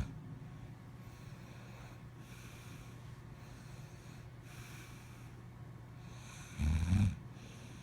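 A person snoring in sleep: soft airy breaths every couple of seconds, then one loud low snore in two pulses about six and a half seconds in, over a steady low hum.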